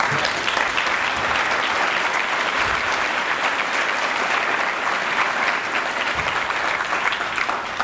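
Audience applauding steadily, a dense clatter of many hands clapping, easing off slightly near the end.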